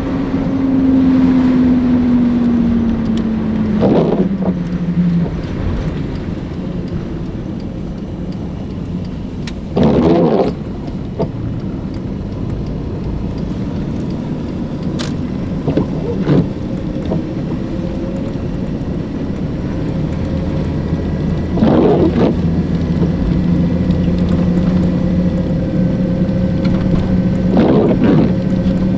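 A car driving, with steady engine and road noise. The engine note drops over the first few seconds as the car slows, then holds steady. Short bursts of noise come through four times.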